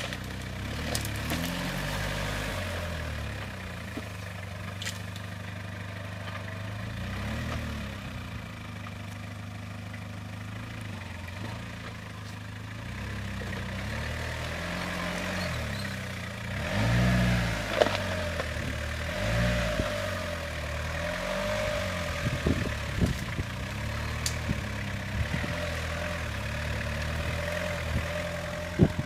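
Asia Rocsta 4x4's engine labouring as it crawls up a steep, rutted dirt track, the revs rising and falling again and again as the driver works the throttle, with a louder burst of revving about two-thirds of the way through. A few sharp knocks and clatters from the vehicle toward the end.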